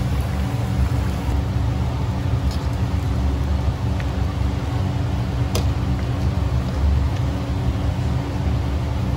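Steady low rumble of a hawker-stall kitchen's machinery, with a few light clinks of a metal ladle against the pot and bowl as curry is served.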